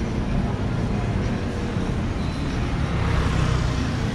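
Busy city street traffic: a steady rumble of passing cars and buses, swelling as a vehicle goes by about three seconds in.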